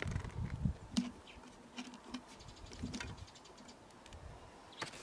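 Soft plastic of an emptied collapsible water bag rustling and crinkling as it is handled and folded, with scattered small clicks. A few low thuds near the start.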